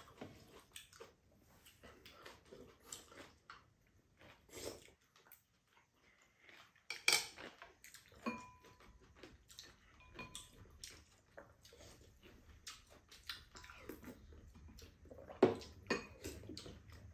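Chopsticks and metal spoons clinking and tapping against ceramic bowls and a pan at a meal, in scattered irregular clicks. Some clicks leave a short ring. The loudest come about seven seconds in and near the end.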